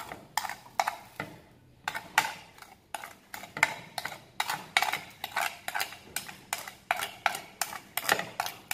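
Small spoon tapping and scraping on a banana leaf held over a plastic container, knocking seasoning off. It makes an irregular run of sharp clicks, two or three a second.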